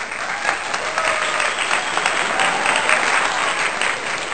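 Crowd applauding, a dense patter of clapping that starts and stops abruptly.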